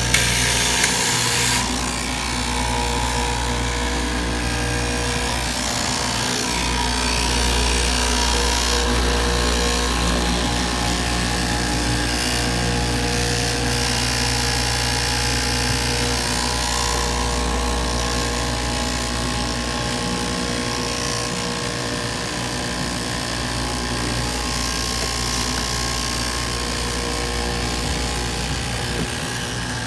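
Eastman Blue Streak straight-knife fabric cutting machine running steadily, its motor driving the upright reciprocating blade through a stack of fabric layers.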